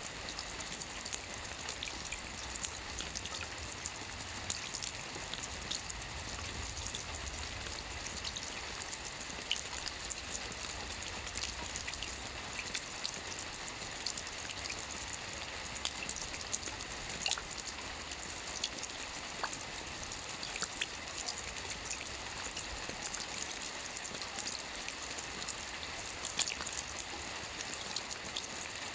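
Steady rain falling, with a continuous hiss and many separate drops ticking on a surface.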